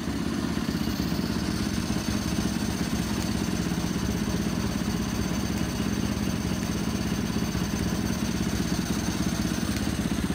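Yamaha YZ450F's 450 cc single-cylinder four-stroke engine idling steadily, its stock stator powering the LED headlight.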